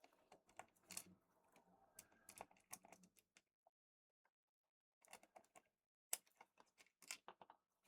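Faint, scattered clicks and taps of small plastic headset parts being handled and fitted together, with a pause in the middle.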